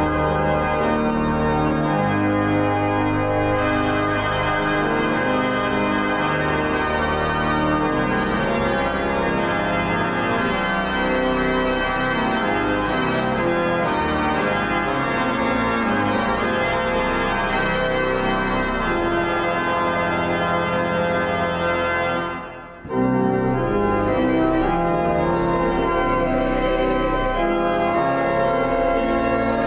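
Church organ playing sustained chords that change every second or two. The sound breaks off briefly about 22 seconds in, then resumes.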